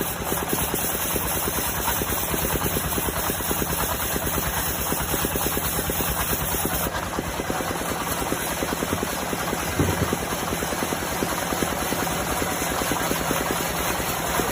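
Band sawmill running steadily, with a fast, even throbbing pulse.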